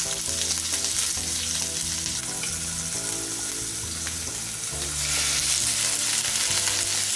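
Paneer cubes sizzling as they shallow-fry in hot oil, a dense crackling hiss that grows louder about five seconds in.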